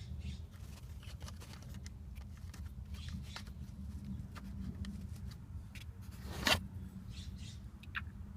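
Small clicks, scrapes and rustles of hands handling dash-speaker parts and mounting screws, with one louder sharp knock about six and a half seconds in, over a steady low hum.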